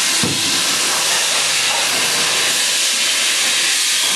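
Steady, loud hiss of machine-shop noise around a powered-up CNC screw machine, even and unbroken. There is a brief low sound just after the start.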